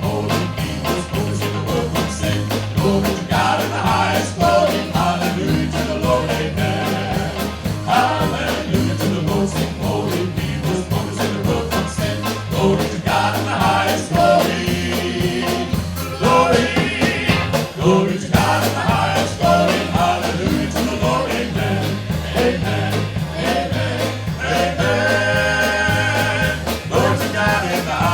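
Band music in a rock-gospel style, with a steady drum beat and bass line under melody lines.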